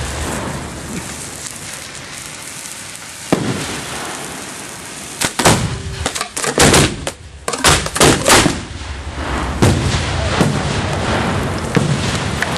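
A flight of fireworks aerial shells fired in quick succession from mortar tubes: over a dozen sharp bangs, most packed together from about five to eight and a half seconds in, with single ones before and after, over a steady hiss.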